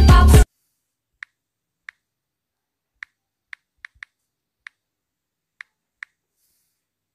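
Music cuts off suddenly about half a second in. Then a smartphone's on-screen keyboard clicks as a word is typed: nine short, soft key-press clicks at uneven spacing.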